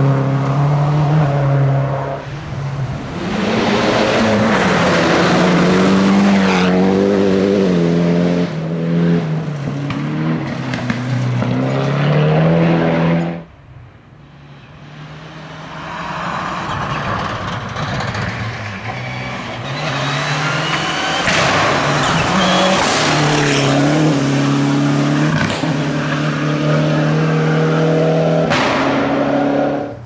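Rally cars driven at full speed on a loose gravel stage, engines revving up and down through gear changes, with tyres working the gravel. The first car's sound cuts off suddenly about halfway through, and a second car's engine builds up as it comes closer.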